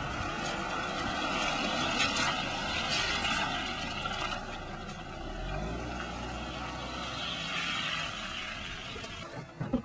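A car driving on a wet road, its tyres hissing through the water, with a low engine note under it. The hiss swells as the car passes close. A couple of sharp knocks come just before the end.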